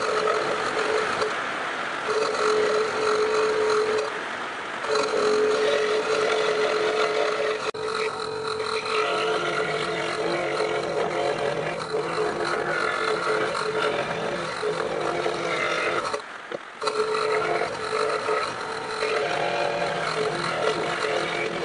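Electric woodworking power tool running steadily while it cuts a wooden sign, a held hum with brief breaks about five seconds in and again about sixteen seconds in.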